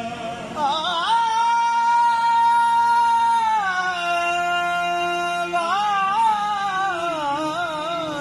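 Qawwali singing with harmonium: a male voice holds a long high note, drops to a lower held note, then breaks into wavering, ornamented runs.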